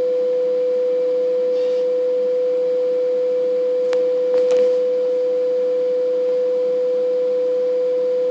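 Agfa Avantra 25 imagesetter giving off a steady, unbroken mid-pitched tone, with a few sharp clicks about four seconds in.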